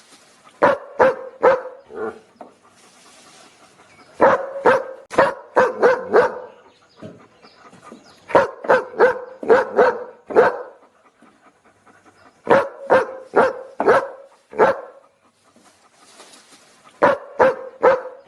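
A dog barking in rapid volleys of short, sharp barks, each volley three to seven barks long, with brief pauses between them.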